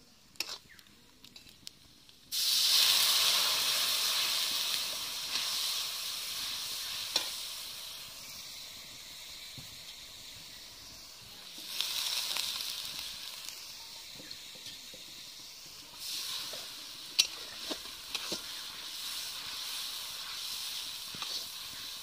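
Spice mixture frying in hot oil in a steel kadai: a sudden loud sizzle starts about two seconds in as it goes into the oil, slowly dies down, then swells again twice as it is stirred, with the steel spatula clinking on the pan now and then.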